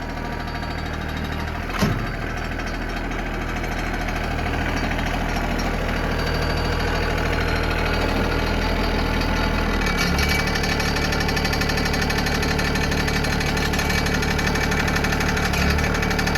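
Engine of the farm machine hauling round bales into the barn, running steadily. Its note shifts about ten seconds in, and there is one sharp knock about two seconds in.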